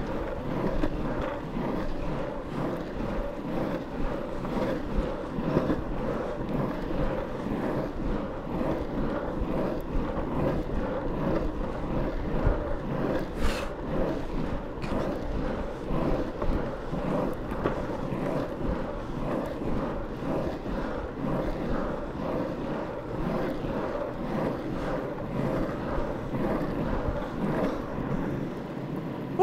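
Longboard's urethane wheels rolling over asphalt: a steady rumble of wheel noise, with wind buffeting the microphone.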